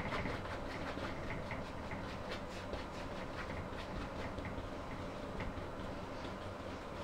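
Paintbrush dabbing and scrubbing oil paint onto a stretched canvas: quick, irregular soft taps over a steady low hum.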